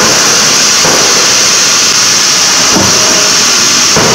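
CNC hydraulic die forging hammer running with a loud steady high hiss from its hydraulics, with several dull blows a second or two apart as it strikes a hot workpiece on the die.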